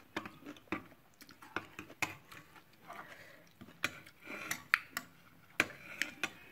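Steel spoon and fork clinking and scraping against a frying pan as noodles are stirred and scooped: a string of sharp clicks, with a few louder clinks in the second half.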